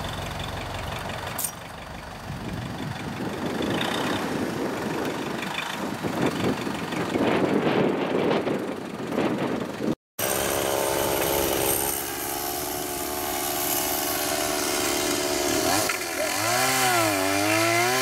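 Gas chainsaw running up in a tree; in the last couple of seconds its engine pitch swings up and down again and again as it cuts into a limb. Before that comes a steady engine drone, and the first half is a rougher, noisier stretch.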